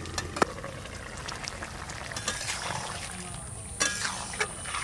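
Fish, potato and ash-gourd curry simmering in an iron wok, with a lid lifted off with a couple of clicks at the start. A metal spatula scrapes and knocks against the pan, most strongly near the end.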